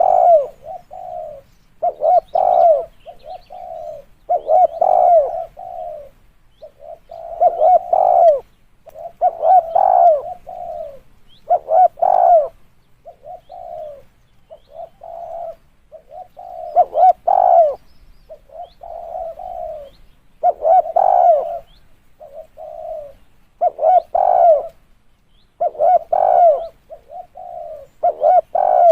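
Spotted dove cooing, with a run of low coo phrases repeated every two seconds or so.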